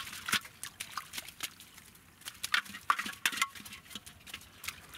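Prawns and small fish flapping in a wet cast net in shallow water while hands sort through the catch: irregular sharp wet pats, flicks and small splashes, with a short lull about two seconds in.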